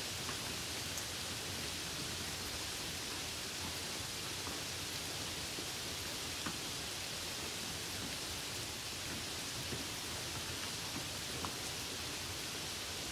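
Steady rain falling: an even hiss with an occasional single drop ticking out of it.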